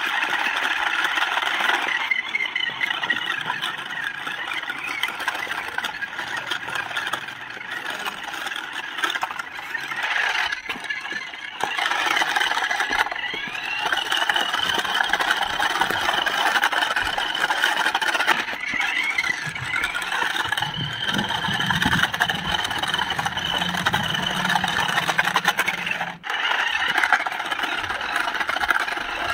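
Battery-powered toy remote-control car's small electric motor and gears whirring as it drives over rough concrete, the whine rising and falling as it speeds up and slows down. There are short breaks about ten seconds in and near the end.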